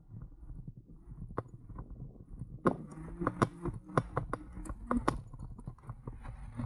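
An e-bike rattling and knocking over an uneven surface: irregular clicks and knocks over a low rumble, busier from about two and a half seconds in.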